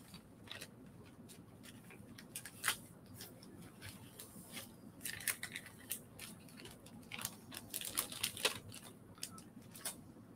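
Faint crinkling and scattered small clicks of plastic packaging being handled and opened by hand, to unpack a small plastic model part, with a longer rustle about halfway through.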